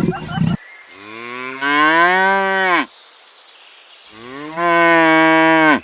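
A cow mooing twice: two long, drawn-out moos, the first rising then falling in pitch, the second held steadier. In the first half second the rough tail of another animal's call cuts off.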